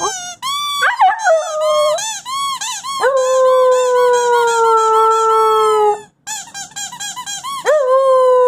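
Young wolfdog puppy howling. Short squeaky yips rise and fall in the first two seconds, then a long howl starts about three seconds in and slowly sinks in pitch, with quick high wavering cries over it. A second long howl starts near the end.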